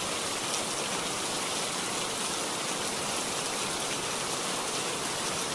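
Heavy rain falling, a steady dense hiss with no let-up.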